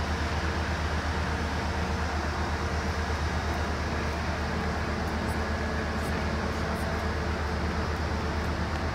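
Siemens Charger diesel-electric locomotive's engine idling at a standstill: a loud, steady, fast-pulsing low hum with a faint steady tone above it.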